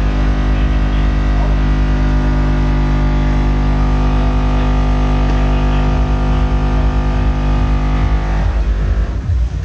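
Car-audio subwoofer system holding one steady, loud bass tone, heavily distorted with many overtones, during a sound-pressure-level competition run; it stops about eight and a half seconds in.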